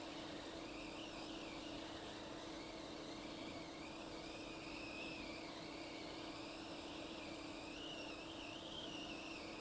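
Hot air rework station blowing steadily while desoldering the NAND flash chip from an iPhone 6 logic board. It makes a constant low hum and a high whine that wavers slightly in pitch.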